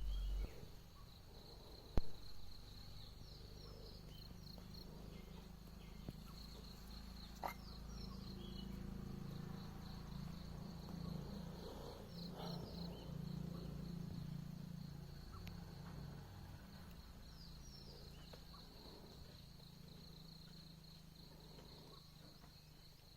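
Insects trilling steadily at one high pitch, with a few short chirps now and then and a low steady hum underneath. A sharp click about two seconds in, and a smaller one later.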